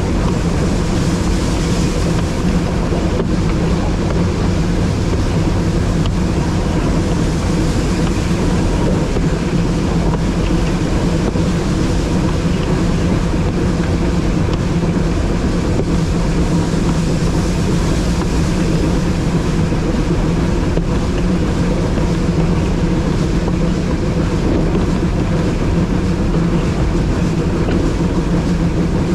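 Narrow-gauge train running steadily along the line, heard from the locomotive cab: a loud, unbroken drone of running noise.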